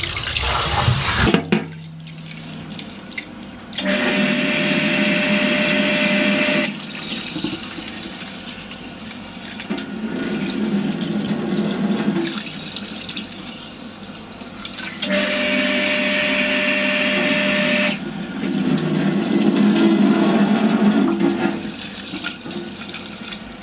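Tap water running into a stainless-steel bowl of rice in a sink. The sound shifts every few seconds as the bowl fills and is emptied: rice being rinsed until the water runs clear.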